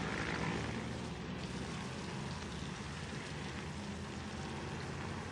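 Steady outdoor background ambience: an even hiss over a low steady hum, with no distinct events.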